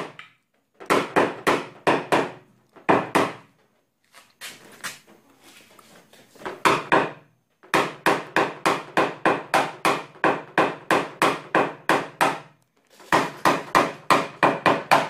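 Paintless dent repair tap-down on a Toyota Camry's sheet-metal panel: a small hammer strikes a knockdown punch held against the metal to lower the high spots around hail dents. It comes as quick runs of sharp taps, about four a second, each with a short metallic ring, broken by brief pauses.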